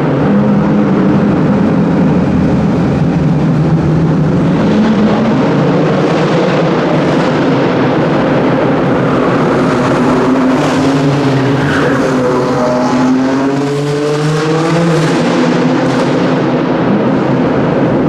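BMW race car engine revving hard through a slalom, its pitch climbing and dropping again and again as the throttle comes on and off. About two-thirds of the way through there is one long, steep rise in revs. The car is running inside a large hall.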